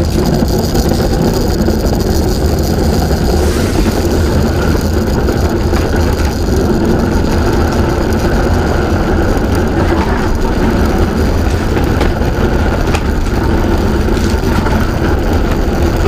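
A bob sliding down an ice bobsleigh track: a loud, steady rumble and rattle of the sled running over the ice.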